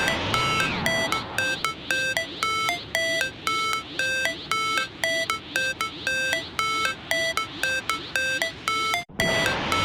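An electronic beeping tune: short, steady beeps jumping between a few pitches, several a second. It breaks off briefly near the end and starts over.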